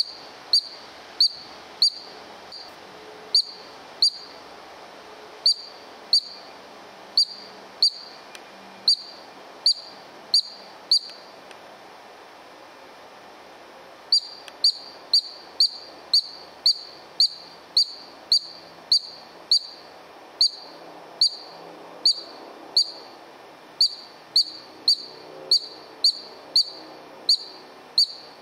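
Columbian ground squirrel giving a series of short, sharp, high chirps, about one and a half a second, the repeated alarm call it makes while standing upright. The calling stops for about three seconds around the middle, then resumes a little faster.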